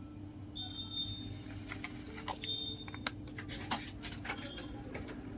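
Plastic protective film being peeled off a phone's display, crackling and clicking irregularly, over a steady low hum.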